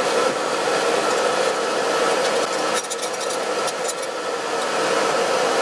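Steel wool rubbing and scratching over a freshly boiled shotgun part, carding off the loose rust between rust-bluing cycles. A steady whooshing hum runs underneath, and the scratching is busiest around the middle.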